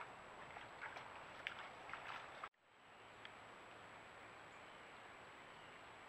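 Faint steady hiss from a trail camera's microphone with a thin high electronic whine, broken by a few faint short clicks in the first half. About halfway through the sound drops out for a moment and then the hiss resumes.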